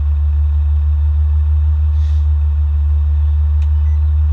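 Farm vehicle engine running with a steady low drone, with a faint click or two over it.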